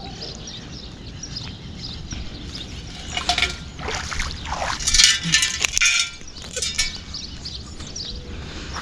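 Shallow water splashing in several short bursts as feet wade through ankle-deep water at the lake's edge, over a steady low outdoor rumble.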